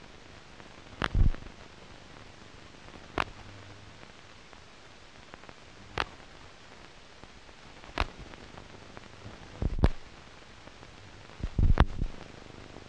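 Steady hiss of an old film soundtrack, broken by about six sharp knocks or clicks at uneven intervals of roughly two seconds; the first and the last two come with a low thud.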